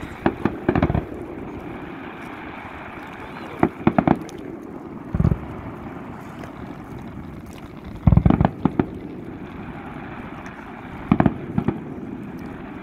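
Aerial firework shells bursting in five clusters of cracks and booms, a few seconds apart. A steady low rumble runs underneath.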